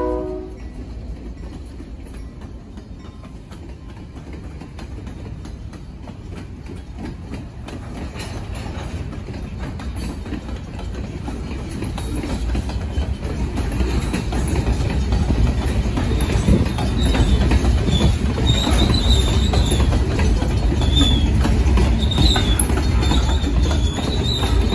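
Freight train cars, covered hoppers and tank cars, rolling past on jointed track with a steady wheel rumble that grows louder over the first half. From about halfway on come intermittent high-pitched wheel squeals. The last of a locomotive horn blast cuts off right at the start.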